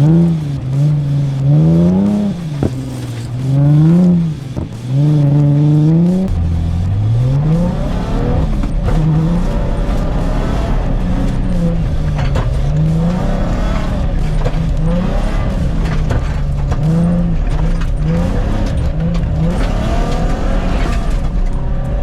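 Rally car engine being driven hard on a dirt course, revving up and dropping back again and again through gear changes and corners. The revs swing sharply for the first few seconds, then rise and fall more evenly over a steady rumble.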